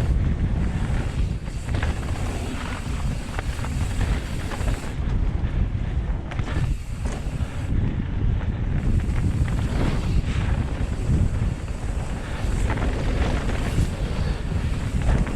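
Wind buffeting the microphone and a steady rumble of tyres and rattle on a dirt trail as a mountain bike is ridden at speed, with a few sharp knocks from bumps.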